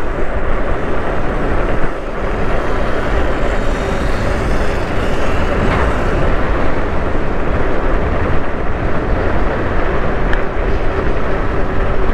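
Steady rush of wind buffeting the microphone, with road noise, while riding at speed; no engine note stands out.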